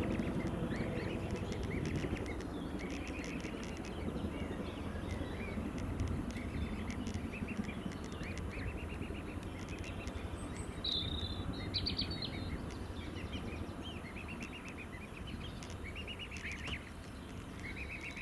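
Mute swan cygnets peeping: many short, high cheeps in quick runs over a low steady rumble. Near the middle, a higher-pitched call comes twice.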